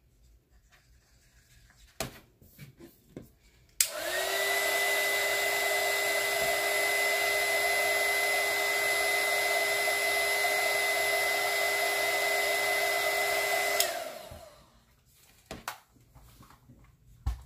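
Small handheld craft heat gun switched on about four seconds in, blowing steadily with a steady whine over its fan noise for about ten seconds, then switched off, its fan winding down. It is blowing hot air into a cup of freshly mixed epoxy resin to warm it.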